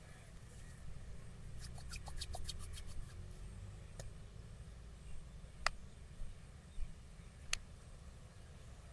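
Joints being cracked during a massage: a quick run of about eight small pops, then three single sharp cracks a second or two apart.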